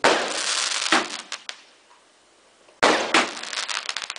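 Fireworks going off: a sharp bang followed by crackling and a few pops that die away over about a second and a half, then after a short lull a second bang with more crackling and popping.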